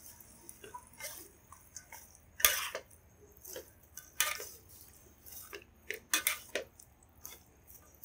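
Metal spatula scraping and clinking against a wok as a vegetable stir-fry is tossed with the spatula and chopsticks. The scrapes come in short, uneven strokes, the loudest about two and a half, four and six seconds in.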